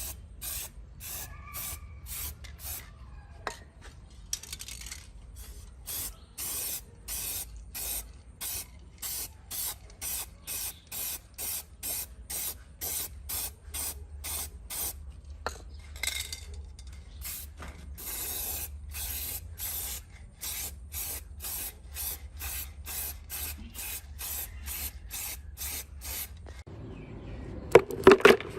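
Paint being sprayed in short repeated hissing bursts, about two a second, with brief pauses between them. A few sharp, loud metallic clicks come near the end.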